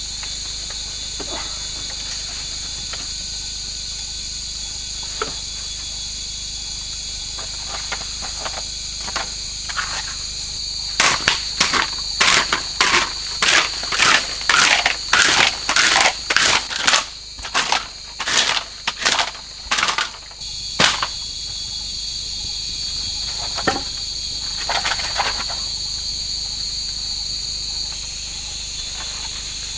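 A bamboo pole is jabbed and scraped into the soil in a run of sharp strokes, one or two a second, for about ten seconds in the middle. Underneath, forest insects keep up a steady high-pitched chirring throughout.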